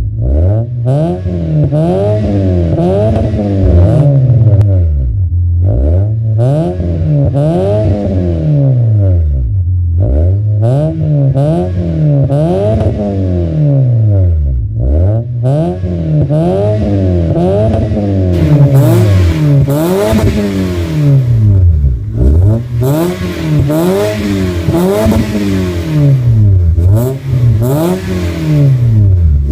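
Toyota Vios four-cylinder engine free-revved in park through an aftermarket cat-back exhaust with dual tips, its pitch rising and falling in quick blips about once a second.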